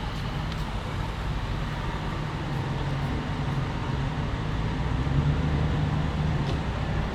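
Street traffic noise with a vehicle engine running close by, a steady low hum that grows a little louder about five seconds in and then eases.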